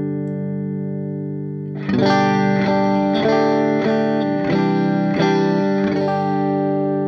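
Electric guitar (a Strat) played clean through an AmS Hurricane 40 tube amp head with four 6V6 power tubes, into a 1x12 cabinet. A held chord rings and fades. About two seconds in comes a quick run of strummed chords, roughly two a second, and a last chord rings out near the end.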